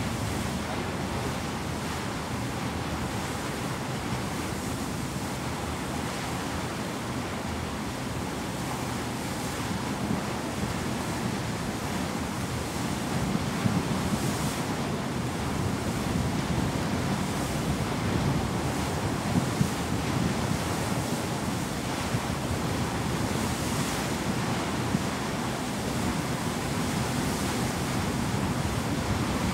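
Steady wind buffeting the microphone over the rush of sea water at a ship's bow, a little louder and gustier from about halfway.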